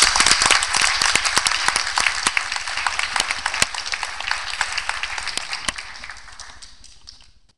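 Audience applauding after a poetry reading, loudest at first and gradually dying away, then cut off abruptly near the end.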